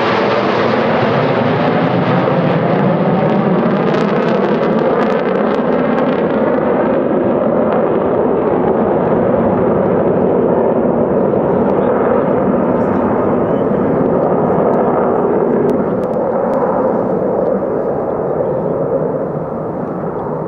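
Jet engine noise from a formation fly-by of two Panavia Tornado IDS jets, each with two RB199 turbofans. The noise is loud and steady with a sweeping, phasing quality as the jets pass. It grows duller and fades as they draw away, dropping off over the last few seconds.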